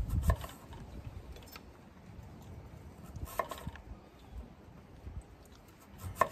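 Chef's knife slicing peeled sweet potato on a wooden cutting board: a few sharp knocks of the blade meeting the board, spaced a second or more apart.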